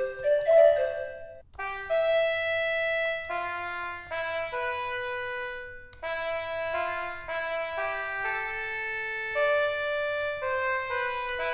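Instrumental music: a melody of held, overlapping notes on a wind-like instrument sound, with short breaks about one and a half seconds and six seconds in.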